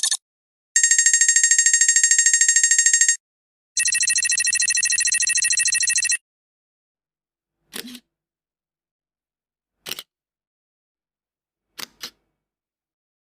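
A bell rings in two rapid trills of about two and a half seconds each, the second higher and brighter. Then come three short sharp clicks a couple of seconds apart, the last a quick double click.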